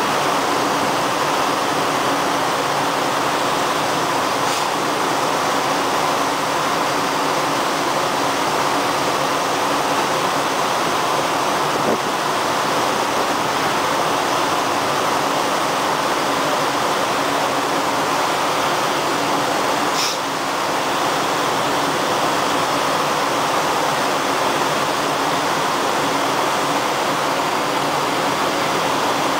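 Steady rushing of water as a canal lock chamber floods, the water churning up into the chamber, with a faint steady hum underneath and a brief click about twenty seconds in.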